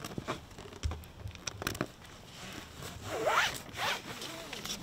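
The plastic edge of a soft-top window panel sliding into its channel along the top's rail, making a run of short scraping rasps. Two longer rising rasps come a little after three seconds in.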